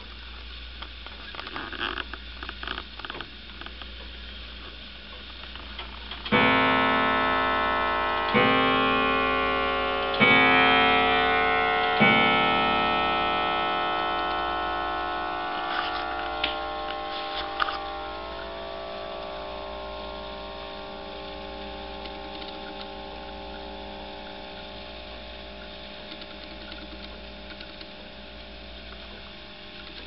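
1905 Regina hall clock striking four o'clock: four deep, even strikes about two seconds apart. Each strike rings in many tones at once, and the ringing dies away slowly. A few soft clicks come before the first strike, and a few light knocks sound while the ringing fades.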